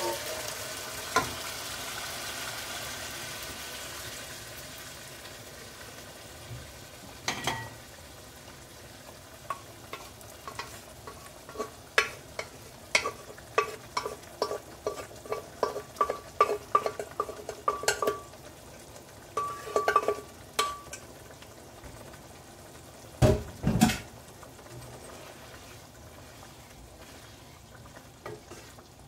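Cooked black-eyed peas and their water poured into hot masala in a pan, with a sizzling hiss that dies away over the first several seconds as the liquid cools the pan. Then a long run of quick metallic clinks as the last peas are knocked out of a steel bowl into the pan, and two heavy knocks a few seconds later.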